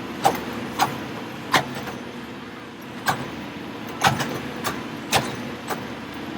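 Railroad track-maintenance machinery in a tie-replacement gang running steadily, with about nine sharp clanks at uneven intervals.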